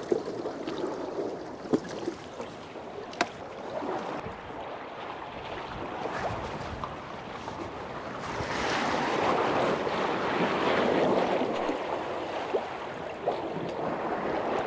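Sea water sloshing and washing against the pier's lower landing and pilings, with a bigger surge about eight seconds in that eases off a few seconds later. The rising tide is reaching the landing. Two sharp knocks sound in the first few seconds.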